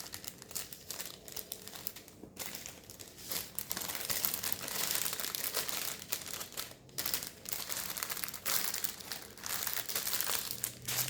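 Plastic packaging of a diamond painting kit's drill bags being handled: a run of crinkling rustles, with short pauses about two and seven seconds in.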